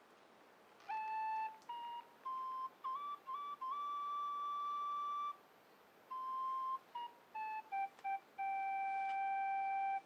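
Background music: a slow solo flute melody of held notes with short ornaments. One phrase climbs to a long high note, then after a pause a second phrase steps down to a long low note near the end.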